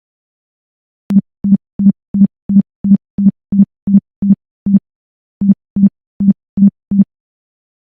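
Low-pitched electronic buzzer beeping in short, even pulses, about three a second: eleven beeps, a brief break, then five more. It is the door alarm circuit's buzzer sounding in the Multisim simulation, signalling that the alarm has been triggered.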